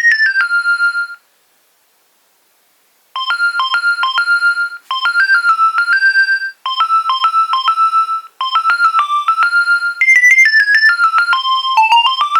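Nokia 2300 mobile phone ringtones, each a melody of short electronic beeping notes. One tune ends about a second in. After two seconds of silence the next ringtone starts: a short phrase repeated several times, then going higher near the end.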